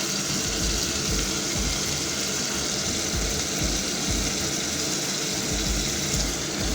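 Tomato and onion mixture frying in a pan with a steady sizzle, with occasional low thuds underneath.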